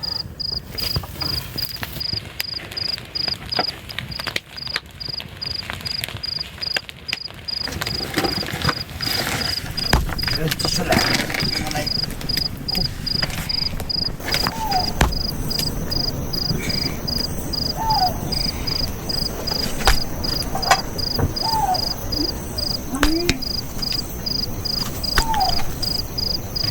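An insect chirping in a high, steady, evenly spaced pulse at about two chirps a second, with scattered knocks and a few short sliding calls in the second half.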